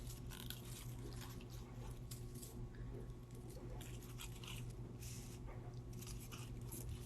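Faint, irregular crinkly rustling as dry leaves and air plants are handled and laid on paper, over a steady low hum.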